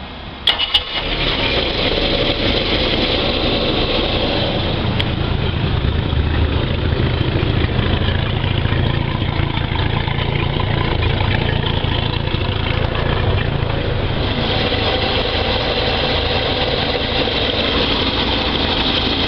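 MerCruiser 4.3-litre carbureted V6 inboard engine starting about a second in, then running steadily at idle. It has just been dried out after hydro-locking with water.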